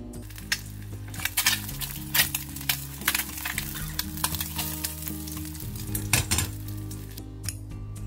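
An egg frying in oil in a frying pan, a steady sizzle with scattered sharp crackling pops, which dies away near the end.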